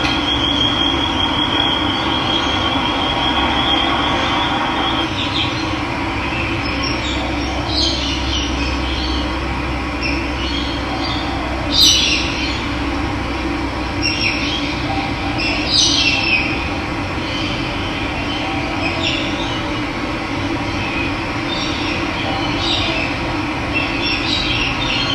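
Steady rush of running water with birds chirping in short calls now and then, the loudest about halfway through. A thin, high trilling tone sounds over the water for the first few seconds.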